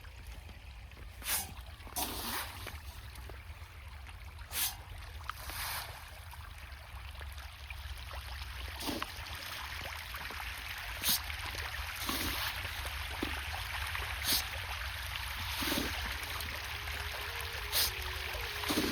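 Water trickling and running steadily, slowly growing a little louder, with short splashes every one to three seconds.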